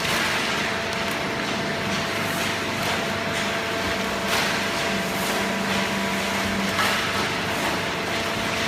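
Hydraulic cardboard baler running: steady machine noise with a constant hum and a few sharp clicks.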